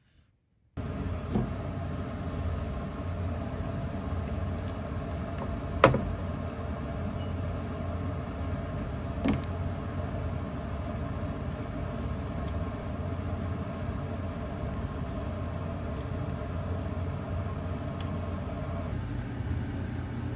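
A steady mechanical hum, a kitchen extractor fan running over the stove, cuts in just under a second in. A few sharp clinks of a metal ladle against the pot and bowl sound over it, the loudest about six seconds in.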